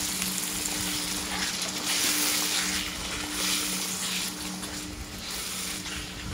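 Chicken in spice paste sizzling in a wok with water just added, as a wooden spatula stirs through the liquid in slow strokes, the hiss swelling with each stroke. A steady low hum runs underneath.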